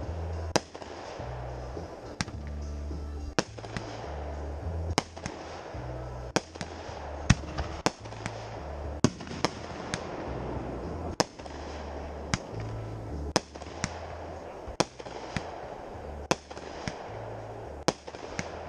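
Aerial fireworks going off in a steady run: sharp bangs and pops about one or two a second, as shots launch from the ground and burst overhead.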